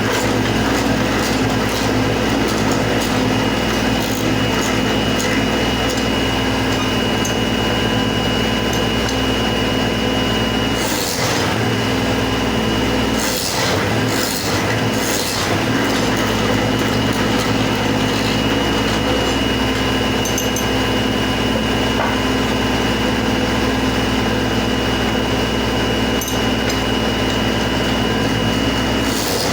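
An electric woodworking machine running steadily, with a constant motor hum and a thin high whine. Around the middle the sound briefly breaks up and shifts a few times.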